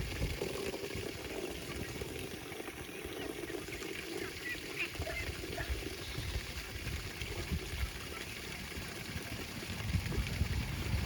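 Farm poultry calling in short, scattered calls, with a low uneven rumble of wind and handling on the microphone.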